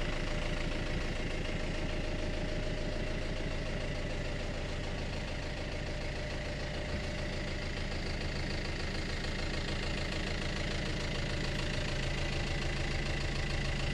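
A sailing yacht's inboard diesel engine idling steadily, heard from inside the cabin below deck as an even low hum.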